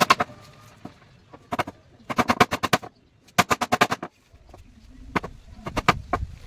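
Bursts of rapid, sharp taps, several strikes in quick succession with short pauses between: a hammer tapping a carving chisel into wood.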